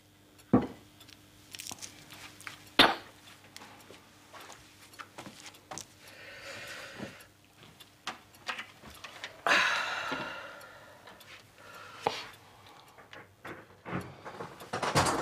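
Tableware being handled on a table: scattered sharp knocks and clinks of plates and glasses being set down, with two longer hissing stretches in between.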